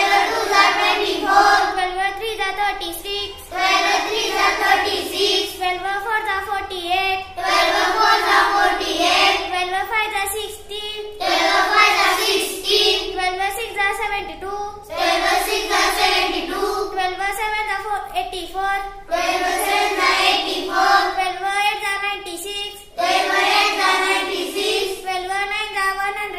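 A girl chanting the 12 times table in English in a sing-song recitation, one line after another with a short break about every four seconds.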